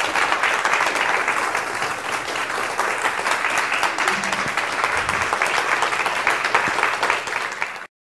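Audience applauding at the end of a lecture, a dense steady clapping that cuts off suddenly near the end.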